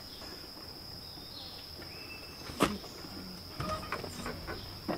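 Kawasaki Bayou 250 four-wheeler being tipped forward onto a pickup's tailgate: one sharp knock about halfway through, then a few lighter clunks and rattles near the end. A steady high insect drone runs underneath.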